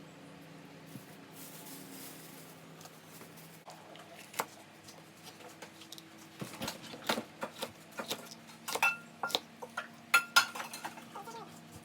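Kitchen utensils and dishes clinking and tapping: a string of sharp clicks and clinks, some ringing briefly, getting busier in the second half. A faint low hum fades out a few seconds in.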